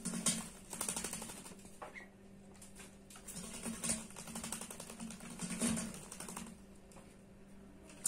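A myna bathing in a steel bowl of water, flapping its wings and splashing in several short bouts of rapid patter that ease off near the end.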